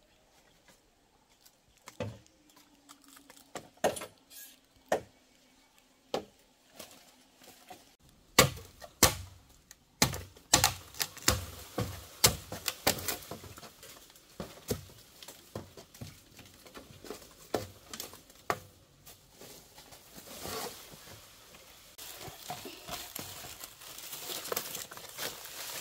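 Irregular sharp knocks and taps of hand work, sparse at first and coming faster and louder after about ten seconds.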